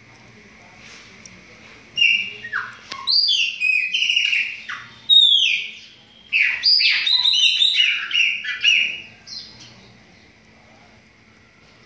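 Chopi blackbird (pássaro-preto) song: after a short lull, a loud run of varied whistled notes, many of them sliding downward, starts about two seconds in and dies away with a few faint notes near the end.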